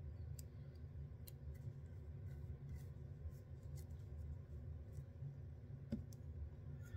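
Faint, scattered ticks and rustles of hands working synthetic hair and tying thread at a fly-tying vise, over a low steady room hum.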